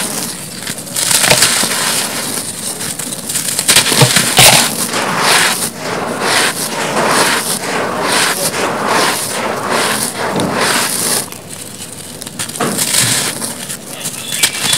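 Soft, dry sandy cement blocks crumbling between bare hands: dense, irregular gritty crunching as grit and powder fall onto a heap of dust, with a few sharper cracks about four seconds in and a quieter stretch near the end.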